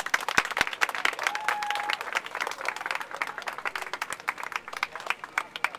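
A crowd applauding, many hands clapping densely; the clapping stops near the end.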